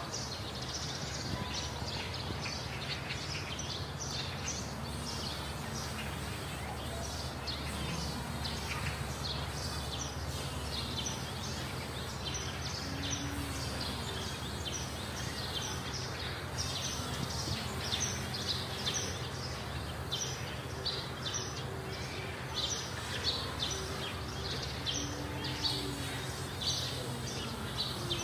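Birds chirping over and over in quick short calls, over a steady low hum.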